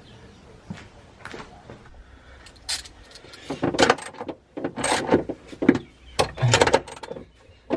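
Hand tools working on suspension nuts: a run of irregular metallic clicks and clanks that starts about three seconds in, typical of a ratchet or spanner tightening the fastenings.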